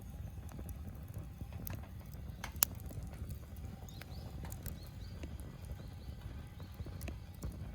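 Wood fire crackling in a fire pit: scattered sharp pops and ticks, with one loud snap about two and a half seconds in, over a low steady rumble.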